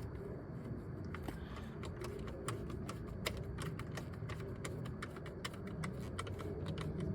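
Ratchet clicking in quick, irregular runs as a trim-panel bolt is tightened.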